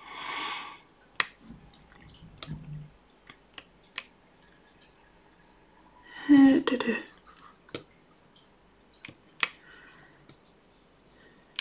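Small sharp clicks and taps, scattered irregularly, of a diamond-painting drill pen picking round resin drills out of a plastic tray and pressing them onto the canvas. A breathy exhale comes right at the start, and a louder breathy vocal sound about six seconds in.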